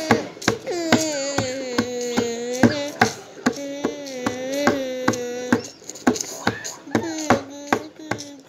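A child singing long, drawn-out wordless notes that slide up and down, over a rough beat of sharp taps or knocks, about two or three a second. The singing breaks off briefly past the middle while the tapping goes on.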